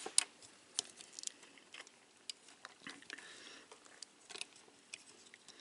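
Faint, scattered plastic clicks and ticks from a Transformers Siege Voyager Class Springer action figure being handled, its head turned and its arm and shoulder parts pushed into place.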